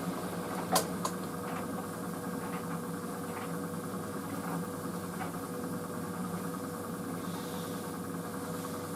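White Knight CL43 tumble dryer running on high heat: a steady motor and fan hum as the drum turns. There is a sharp click just under a second in, followed by a softer one, and faint occasional ticks.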